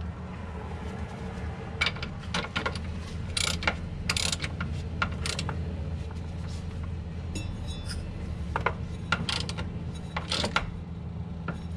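Ratchet wrench clicking in short runs, with metal tool clinks, as the transaxle fill plug is tightened down, over a steady low hum.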